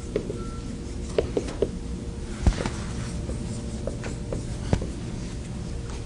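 Steady room hum in a lecture room, with scattered light taps and knocks and a short scratchy noise about two and a half seconds in.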